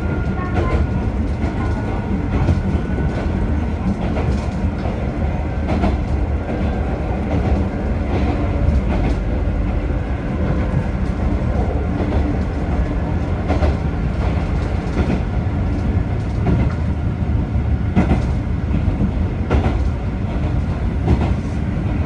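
A Mizuma Railway electric train running along the line, heard from inside the front of the car: a steady low rumble of wheels on rail, with the wheels clacking over rail joints every second or two.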